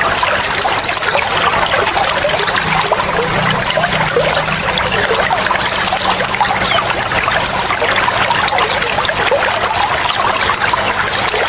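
Steady trickling, flowing water with small songbirds chirping over it in quick high-pitched runs, several times.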